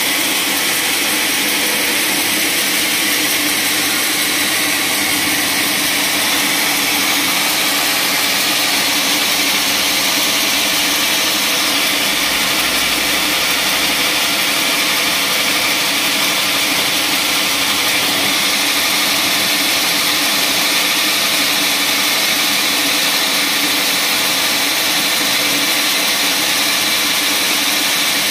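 Band sawmill running steadily: its motor and moving band-saw blade make a loud, even machine noise with a strong high hiss.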